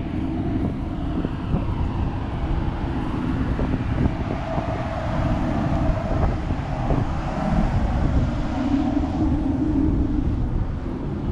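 Storm wind rumbling on the microphone, with a vehicle engine hum, strongest about a second in and again near the end.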